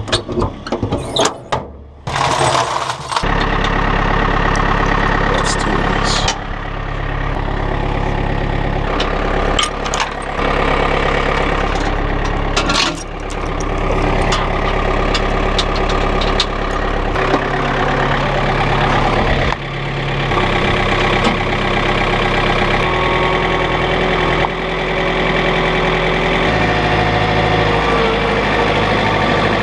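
A few sharp knocks and clicks. About three seconds in, the diesel engine of a compact digging machine starts and runs, its engine speed stepping up and down every few seconds as the machine works.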